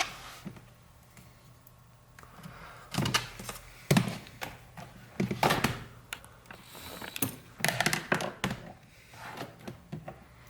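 Front display trim of an MSI GS65 Stealth laptop being pried off with a pry tool: a string of irregular clicks, taps and knocks as the tool works under its edge.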